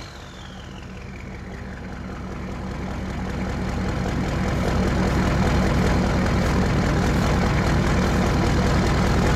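Turbocharged 6.2-litre diesel V8 of a 1984 Chevrolet K30 idling. The turbo's whistle falls in pitch and fades away over the first two seconds as it spools down, while the engine grows louder over the first few seconds and then holds steady.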